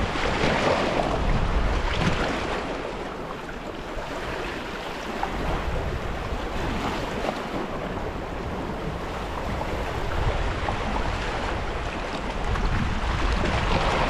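Sea waves washing against a rocky shore, swelling and easing every few seconds, with wind rumbling on the microphone.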